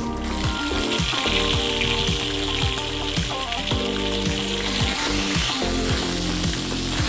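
Food sizzling as it fries in hot oil, the hiss starting suddenly and dying away near the end, over background music with a steady beat.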